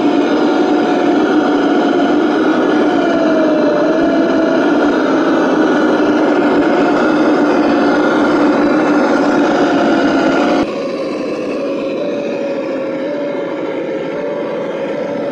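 RC scale Land Rover Defender crawler driving slowly over rubble, its motor giving a steady hum whose pitch wanders slightly with the throttle. About ten and a half seconds in the sound drops in level and changes abruptly, at a cut.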